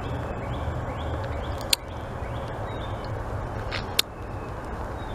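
Sucking on a hard lollipop, with two sharp wet mouth clicks, about two seconds in and about four seconds in. Under them, a steady outdoor rumble and hiss on the microphone, with faint short chirps repeating through the first few seconds.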